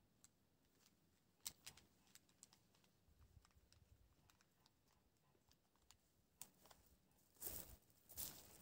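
Near silence, with faint scattered clicks and then two short, soft scrapes near the end: a long-handled garden tool working loose soil in a raised bed.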